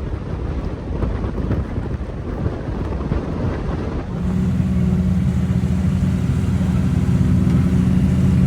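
Car engine: for about the first four seconds a rough, noisy rumble, then an abrupt change to an engine running steadily at a constant pitch.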